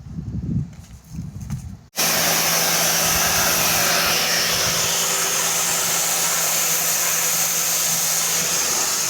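Pressure washer spraying out a trash bin. It starts abruptly about two seconds in as a steady hiss of the water jet over the constant hum of the machine.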